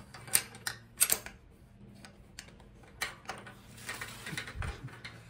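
Scattered sharp clicks and taps of metal parts being handled while a bicycle's handlebar stem is worked back into the fork, with a low thump near the end.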